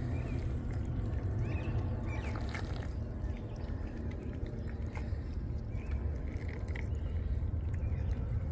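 Several cats eating chunks of wet cat food in gravy from dishes, with wet chewing, lapping and smacking sounds.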